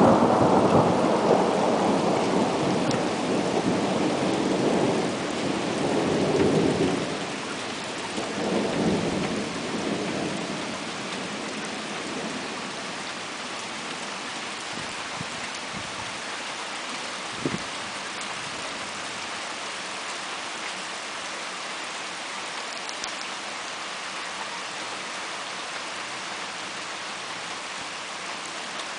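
Thunder rolling loudly at first, swelling again a couple of times and dying away after about ten seconds. Steady rain then falls on its own, with one sharp click just past halfway.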